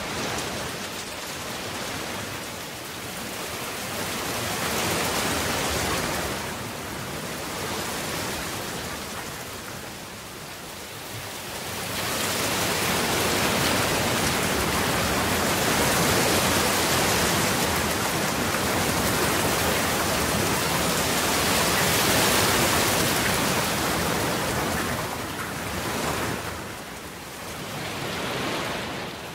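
Heavy rain falling in a steady wash that swells and eases several times, loudest through the middle stretch.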